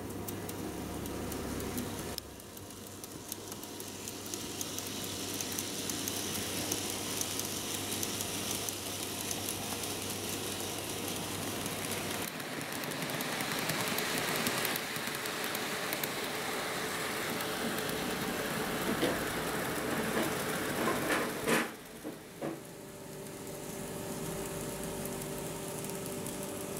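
KATO N-gauge model train running on the layout track: a steady rushing rattle of small metal wheels on rail and the motor's hum. It grows louder about halfway through, with a couple of sharp clicks a little over twenty seconds in, after which it drops to a quieter, steadier hum.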